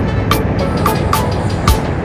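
Music with a steady beat: sharp percussion hits about three or four times a second over heavy, continuous bass.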